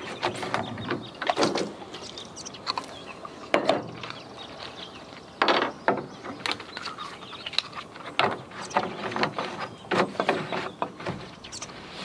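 Irregular plastic clicks, creaks and knocks from handling a large plastic water jug: its cap being unscrewed and its pour spout pulled out.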